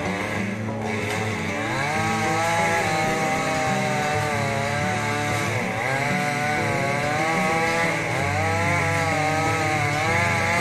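Chainsaw running, its engine pitch rising and falling repeatedly as it is revved through cuts.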